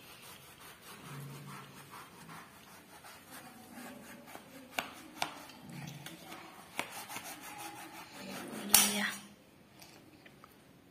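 Kitchen knife sawing and scraping through the thick rind of a pomelo, with several sharp clicks of the blade midway and one louder knock near the end.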